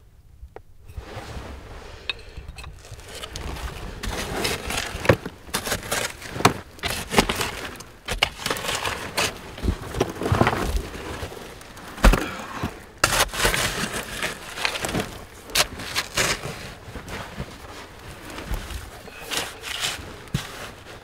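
Digging through privy fill of ash, rubble and broken glass: scraping with many short clinks and knocks as shards and debris shift, and one sharper knock about twelve seconds in.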